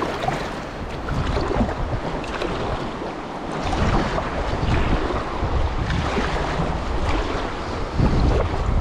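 River water rushing through shallow rapids around a packraft, with wind buffeting the microphone.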